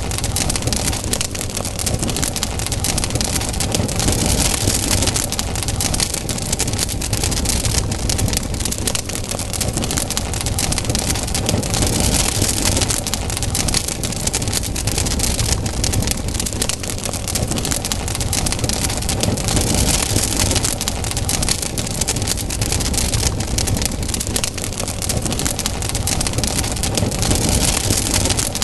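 Campfire burning: a steady rushing of flames with dense, constant crackling of burning wood.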